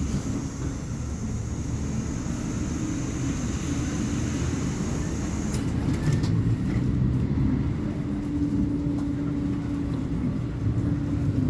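Volvo B58 bus diesel engine running steadily, its low drone shifting slightly in pitch. A thin high whine sits over it through the first half and stops about halfway.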